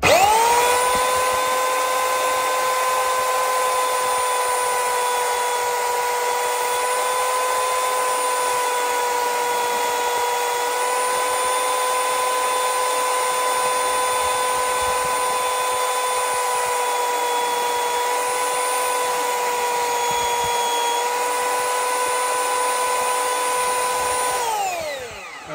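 Bosch belt sander switched on, running steadily with a high motor whine, then switched off near the end, its pitch falling as it winds down.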